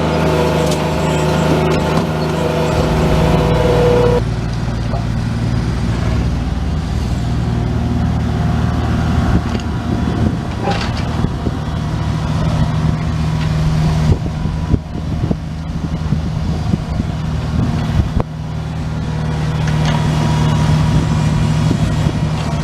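Bobcat S70 skid steer loader's small diesel engine running steadily, heard from the operator's seat, with its note changing twice in the first few seconds. Irregular clanks and knocks from the machine working come through the middle and later part.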